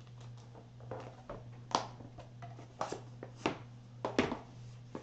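Handling of a clear plastic storage case and a small circuit-board adapter: a series of sharp plastic clicks and taps, the loudest about five in the second half, over a steady low hum.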